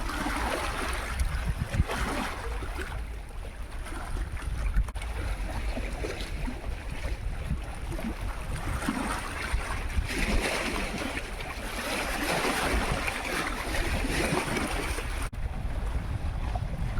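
Sea waves washing onto the shore in swells of hiss that rise and fall, with wind rumbling on the microphone.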